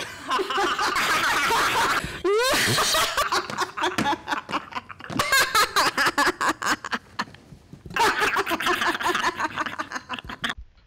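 Girls laughing hard in fits of quick bursts, with a short rising squeal about two seconds in; the laughter dies down for a moment around seven seconds in and then starts again.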